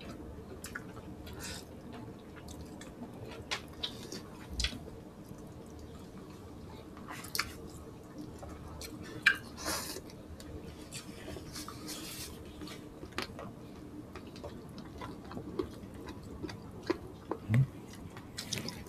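Close-up mouth sounds of eating by hand: wet chewing, lip smacks and small clicks, scattered and irregular, with a louder smack about nine seconds in, over a faint steady hum.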